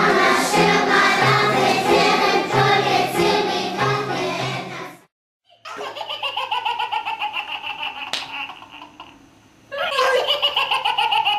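Children's choir singing with music, cut off about five seconds in. After a short silence, a toddler laughing in repeated bursts, loudest near the end.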